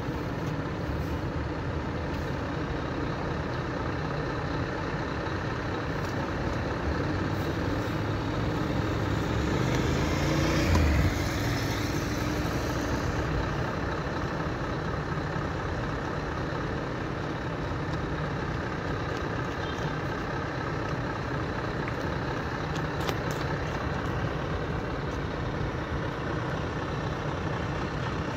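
Heavy prime mover truck's diesel engine running as it slowly hauls a train car on a low-loader trailer, with steady road noise. The sound swells louder, peaking about eleven seconds in.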